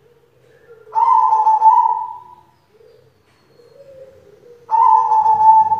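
White zebra dove (perkutut) cooing: two loud calls, one about a second in and another near the end, each lasting about a second and falling slightly in pitch as it ends.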